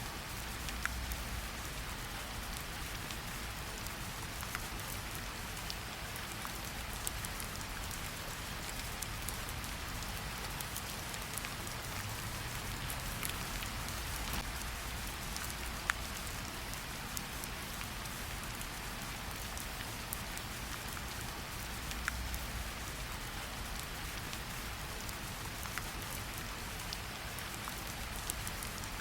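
Steady rain falling and pattering on surfaces, an even hiss with scattered sharper drop ticks and a faint low rumble underneath.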